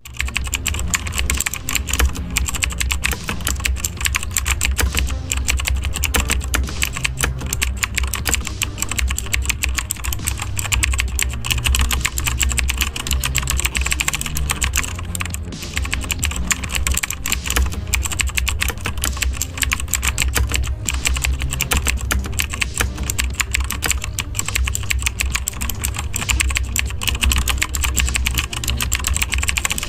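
Rapid, continuous keyboard typing: many clicks a second, keystroke after keystroke.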